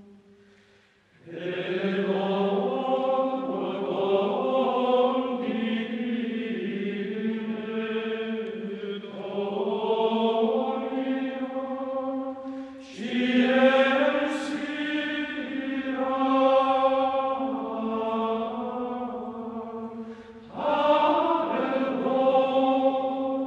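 Slow sacred chant sung by a choir in long held phrases. It starts about a second in, and new phrases begin about halfway through and again near the end.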